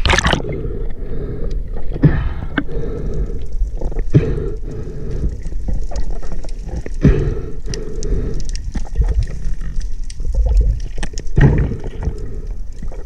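Underwater water noise: a low, muffled rumble with short bubbling crackles every second or two.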